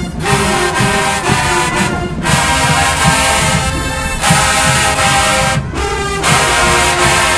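Marching band brass section playing loud held chords in phrases, broken by short gaps about two seconds in and again near the end.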